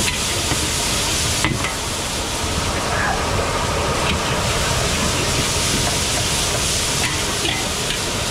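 Seafood steaming and sizzling in a giant wok over a gas jet burner, a steady dense hiss throughout. A long metal ladle stirs and scrapes against the wok, with a few sharp knocks, one about a second and a half in and more near the end.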